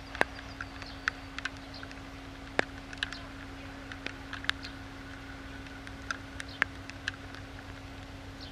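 Distant M62 diesel locomotive's two-stroke V12 engine running steadily as it approaches slowly, a low hum with a constant drone. Short sharp clicks and chirps are scattered over it throughout.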